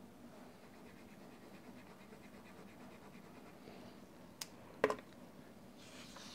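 Faint scratching of a pen shading on paper, then two sharp knocks about half a second apart, the second one the loudest, and a brief rustle of the sheet of paper being slid across the table near the end.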